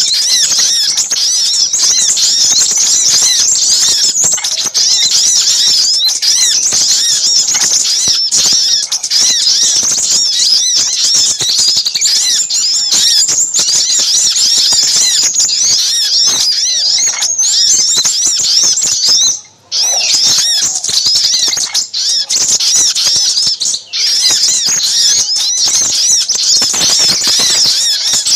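A dense, busy chorus of small birds: the excited calls of little spiderhunters (sogok ontong) mixed with sunbird (sepah raja) calls, a lure recording. It is a continuous stream of rapid, high chirps and twitters, broken by one short pause a little over two-thirds of the way through.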